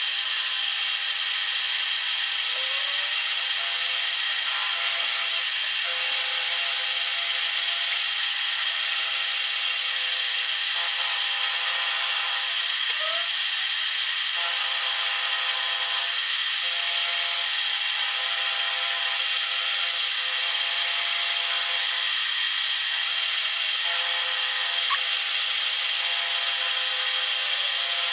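Power tool running steadily as it machines a small angle-iron steel part, a continuous cutting noise with a few faint tones that shift every few seconds.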